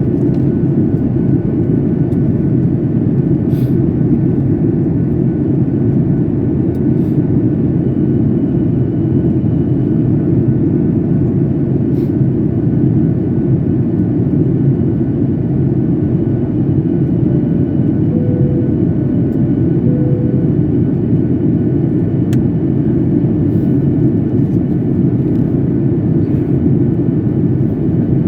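Steady low roar of engine and airflow heard inside a passenger jet's cabin during the approach to landing. Two short soft tones sound about two-thirds of the way through.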